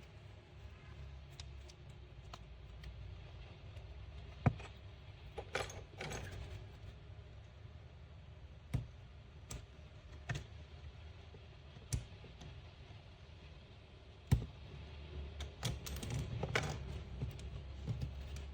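Scattered sharp clicks and light knocks of small hard objects being handled, a second or more apart, over a low steady hum.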